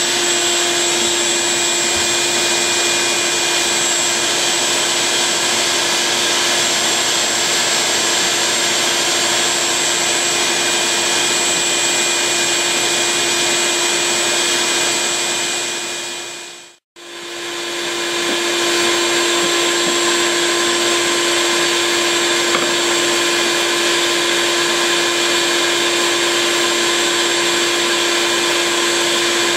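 Vacuum motor running steadily with a constant hum and high whine, the kind of shop vacuum used to suck up honey bees during a hive removal. The sound fades out to silence about halfway through and comes straight back.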